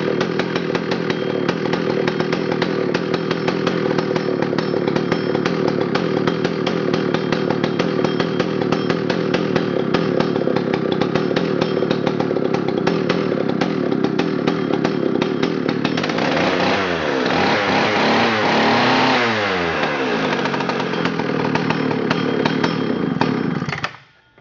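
McCulloch Super Pro 125's 123 cc (7.5 cubic inch) two-stroke chainsaw engine running steadily. About two-thirds through it is revved up and down several times, then it shuts off abruptly near the end.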